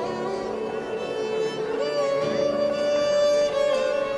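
Background music: a mournful bowed-string melody with long held notes that slide between pitches.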